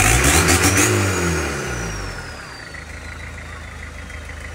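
Off-road 4x4's engine revved hard, then dropping back toward idle over about two seconds, with a thin high whine slowly falling in pitch as it settles to a steady low run.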